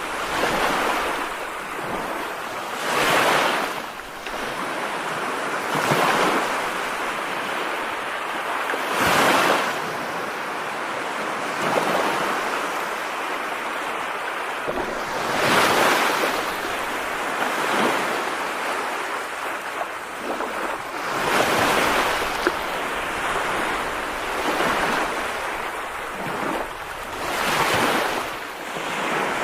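Steady rushing hiss of heavy rain, swelling every two to four seconds.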